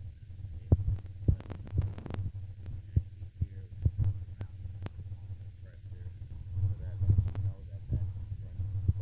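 Irregular sharp knocks and clicks over a low steady hum.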